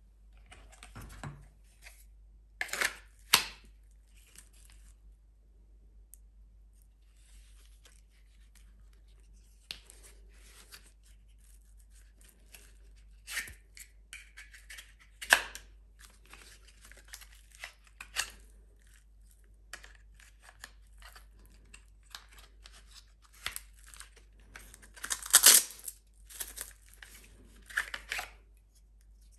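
Scattered sharp clicks, snaps and scrapes of a Kydex knife sheath and its webbing carrier being handled, with the Fox Knives MR103/5 knife pushed into the sheath and drawn out of it. The loudest cluster of clicks comes about 25 seconds in.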